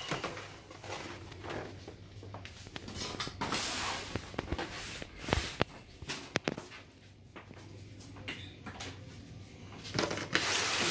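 Kitchen handling noises: scattered knocks and clicks, with a burst of crinkling rustle near the end as a disposable aluminium foil pan is gripped and moved.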